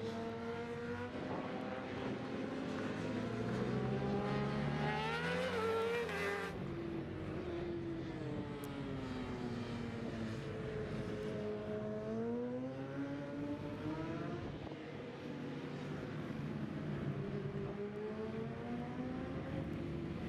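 Superbike racing motorcycle engines revving hard, their pitch climbing and dropping through gear changes as several bikes lap the circuit. The loudest is a rising howl a few seconds in that cuts off abruptly at about six seconds, followed by engines falling and rising again.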